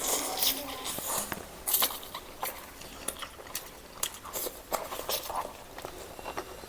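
Close-miked eating of roast chicken: biting and chewing with irregular wet clicks and crackles, several a second.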